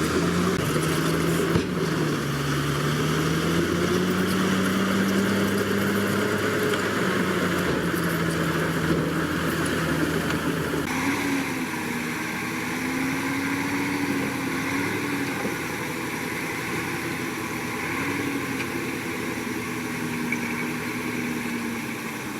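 Heavy diesel engine of earthmoving machinery running under changing load, its pitch drifting up and down. The sound changes abruptly about eleven seconds in.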